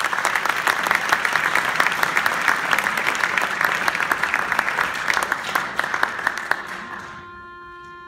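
Audience applause with many hands clapping, dying away about seven seconds in. Near the end a school concert band begins a soft, sustained chord.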